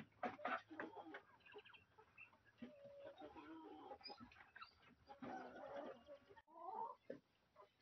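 Domestic fowl clucking softly in short calls, with a few sharp clicks of pecking at food on the ground at the start.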